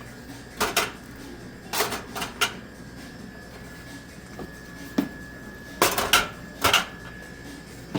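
Drink containers knocking and clacking against a vending machine's metal coil tray as they are loaded in. There are several sharp knocks, some in quick pairs, under a faint steady high hum.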